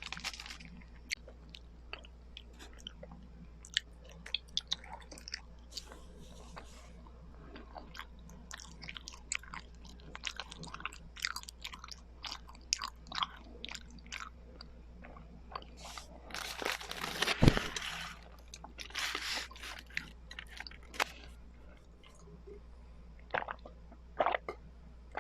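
Close-miked chewing and biting of Filipino rice cakes (kakanin), with many short sharp mouth clicks and a louder, denser burst of chewing about two-thirds of the way through.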